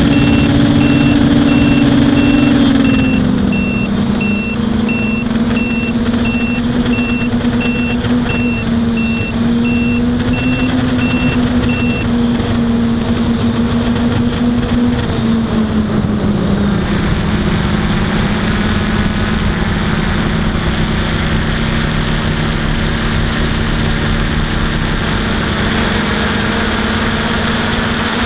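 Aphid X450 quadcopter's electric motors and propellers droning steadily, heard from the onboard camera. The hum steps down in pitch about three seconds in and again around sixteen seconds in as the throttle eases. Through roughly the first twelve seconds a high electronic beep repeats about twice a second.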